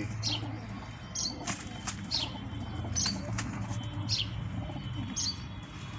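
Birds in a pigeon loft chirping: short, high, falling notes about once a second, with a few sharp clicks, over a steady low hum.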